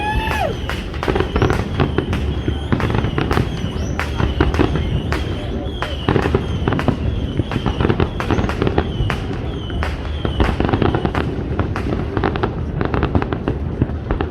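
Fireworks display going off: a rapid, continuous run of bangs and crackles with a deep rumble under them and a few short whistles.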